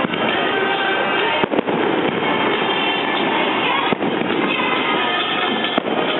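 Fireworks display: a dense, continuous crackle with sharp bangs, two close together about a second and a half in, another near four seconds and one near six seconds.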